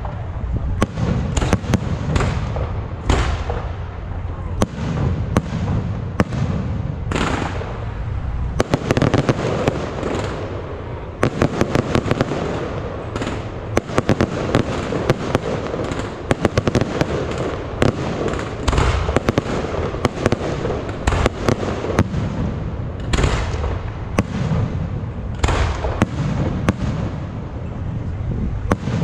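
Fireworks display: aerial shells bursting overhead one after another, with a dense crackle of small rapid reports running between the louder bangs.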